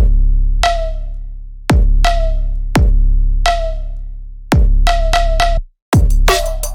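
Electronic background music with a heavy drum-machine beat and deep bass hits. It drops out for an instant near the end, then comes back with quicker hits.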